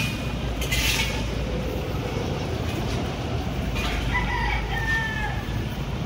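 A rooster crows once about four seconds in, one drawn-out call lasting over a second that drops in pitch at the end, over a steady rumble of city traffic. A brief hiss sounds just before one second in.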